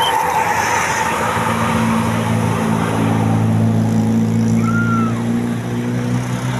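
A tour bus's diesel engine running steadily, with the rumble of passing road traffic; the engine note comes up strongly about two seconds in and holds level.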